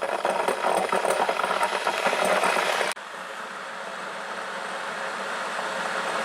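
Steam hissing: crackly at first, then cut off sharply about three seconds in, giving way to a steadier hiss that slowly grows louder.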